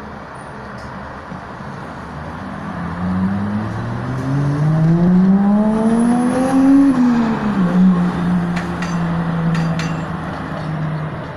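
A road vehicle's engine accelerating in the street below. The engine note climbs for several seconds, drops sharply near the middle as it shifts up a gear, then holds a steady pitch.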